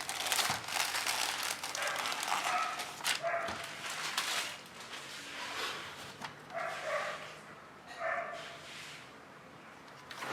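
Packaging rustling and crinkling for the first few seconds as the keyboard is unboxed, then quieter, with a few short high-pitched squeaks.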